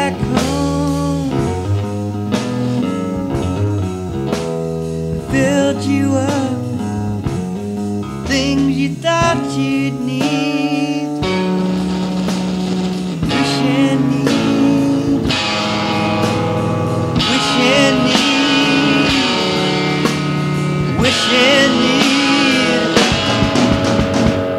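Blues-rock music with guitar, playing steadily throughout.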